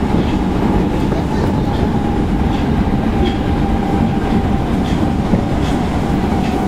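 Osaka Midosuji Line 10 series subway train with IGBT inverter drive running at steady speed: a continuous rumble of wheels on rail with a steady motor hum and scattered faint clicks.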